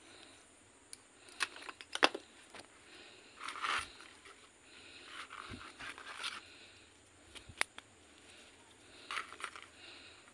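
Hands handling the bare root mass of a kimeng (Ficus microcarpa) bonsai: dry fibrous roots rustling and crackling in a few short bursts, with scattered sharp clicks, the loudest about two seconds in.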